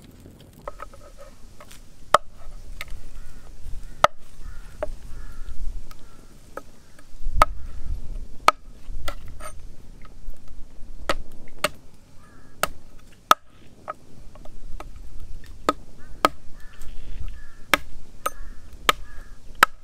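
Broad-bladed knife chopping roots on a wooden board: sharp, irregular knocks, about one a second.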